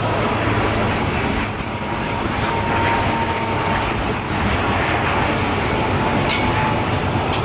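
Container wagons of a freight train rolling through a station: a steady, loud rumble and rattle of steel wheels on rail. A faint thin whine rises over it in the middle, and there are two sharp clicks near the end.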